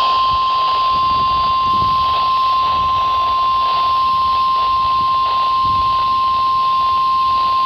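NOAA Weather Radio 1050 Hz warning alarm tone: one steady, loud, unbroken high tone over a hiss of radio reception noise. It signals that a warning message, here a severe thunderstorm warning, is about to be read.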